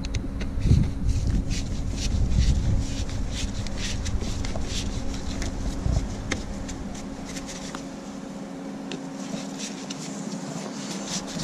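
Screwdriver working a hose clamp on a van's plastic air-intake hose: many small clicks and scrapes of metal and plastic, over a steady low hum. Low rumbling handling noise in the first half dies away after about six seconds.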